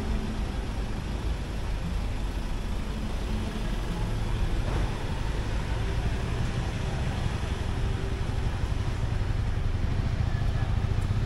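City street traffic: motor vehicles running past, with a low engine rumble that grows louder toward the end.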